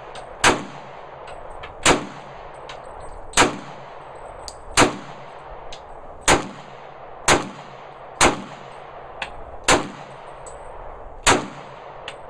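Gun firing nine single shots in slow, steady succession, about one every second to second and a half, each a sharp crack with a short ringing tail. Fainter sharp cracks fall between them.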